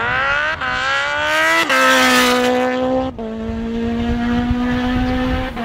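Drag racing engine accelerating at high revs, its pitch climbing and then dropping at gear changes about half a second, a second and a half and three seconds in, holding a steady high note in between.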